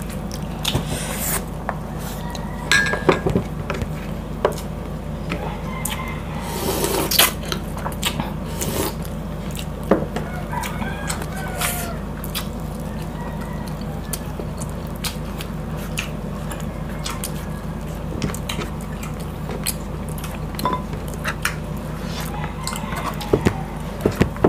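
Close-miked eating: chewing, lip smacking and fingers picking at boiled pork and rice, with many sharp wet clicks and a few louder bursts over a steady low hum.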